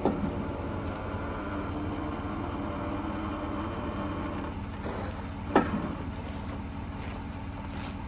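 Semi truck diesel engine idling steadily, with one sharp knock about five and a half seconds in.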